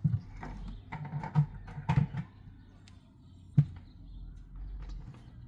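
Irregular knocks and taps, with a sharp single knock about three and a half seconds in.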